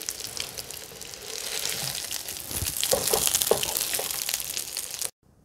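Hot oil sizzling and crackling in a frying pan where breaded fish patties have been shallow-fried, with many small pops; it cuts off abruptly near the end.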